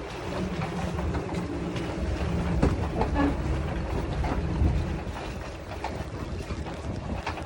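A boat engine running low and steady, with wind on the microphone and scattered small knocks. The hum eases off about five seconds in.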